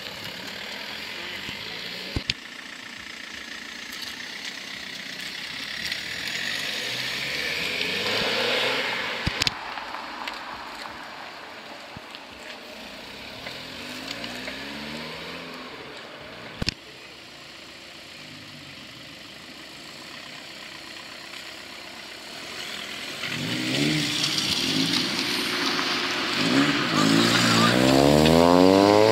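Cars pulling away one after another, their engines revving up in rising sweeps. The loudest comes near the end, an engine climbing steeply in pitch as it accelerates. A few single sharp cracks stand out between them.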